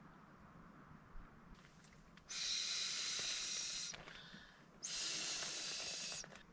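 A person blowing by mouth into the valve of an inflatable camping pillow to fill it: two long, strong breaths of about a second and a half each, with a short pause between.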